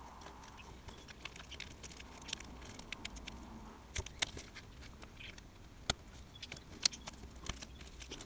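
Light clicks and taps of fingers and a tool on a laptop's small ribbon cable connectors, as the flex cables are seated and their latches pressed shut. The sharpest clicks fall about four, six and seven seconds in.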